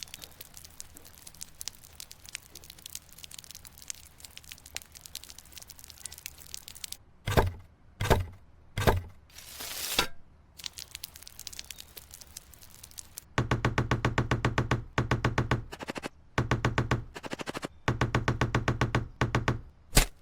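Light crackling taps and clicks, then three sharp knocks and a short hiss; after that a small motor buzzes in rapid pulses, stopping and starting several times.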